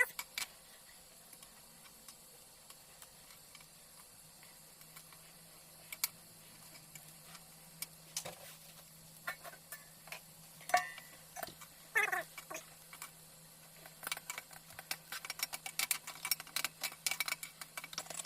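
Faint, irregular crackling and ticking of coconut toasting over heat, growing denser in the last few seconds, over a steady low hum.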